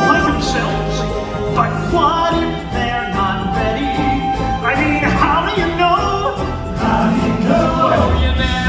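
Music with singing: a stage-musical song number, voices over a full band backing.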